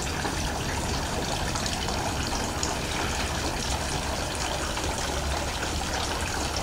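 Tiered garden fountain, water splashing and trickling steadily.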